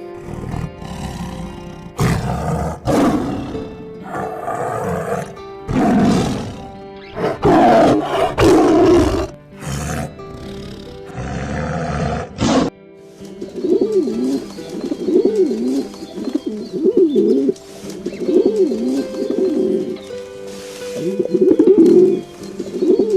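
A big cat roaring several times in loud bursts, then a bird cooing in a repeated wavering call, over background music.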